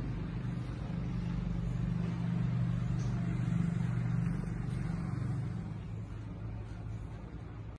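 A motor vehicle's engine passing by on the road below: a low hum that swells to its loudest about midway and then fades away.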